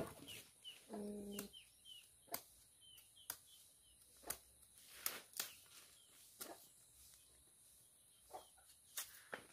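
Sickle blade chopping into a banana bunch's stalk to cut the hands of bananas away, a sharp cut roughly every second. Small birds chirp repeatedly, and a short low animal call sounds about a second in.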